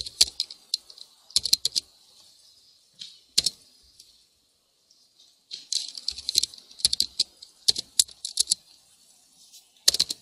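Typing on a computer keyboard: short bursts of keystrokes, with the longest run of rapid clicks about halfway through.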